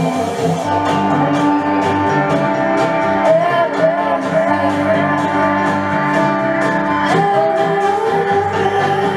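Music: a song with a singer over a steady beat.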